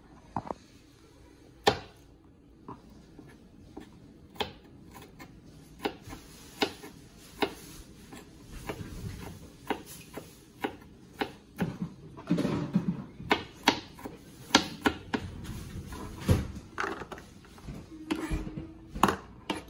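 Kitchen knife dicing bell pepper on a plastic cutting board: irregular sharp taps of the blade striking the board, a few seconds apart at first and coming closer together about halfway through.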